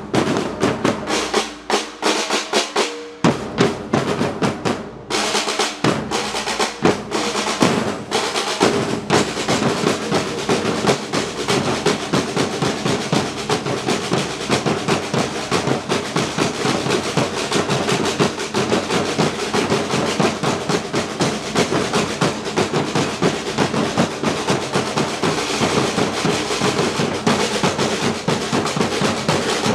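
Batucada percussion ensemble playing: separate drum strokes for the first few seconds, then from about five seconds in the full group plays a dense, steady rhythm with snare drums rolling.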